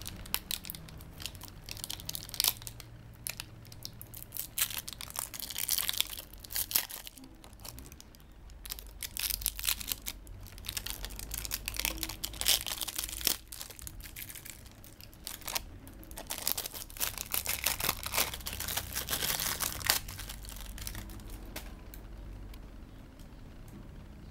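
Thin clear plastic wrap crinkling and tearing as it is peeled off a digital multimeter's case, in repeated crackly bursts that die down near the end.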